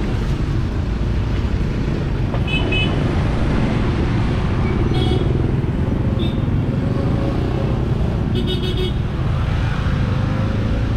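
Busy street traffic: a steady rumble of engines, with several short, high horn toots scattered through.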